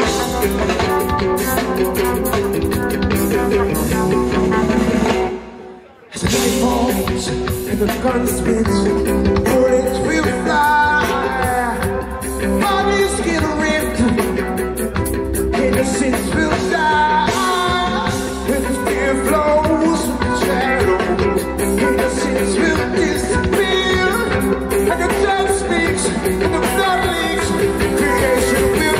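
Live band playing: electric guitar, electric bass and drum kit. The music stops abruptly about six seconds in and comes back half a second later.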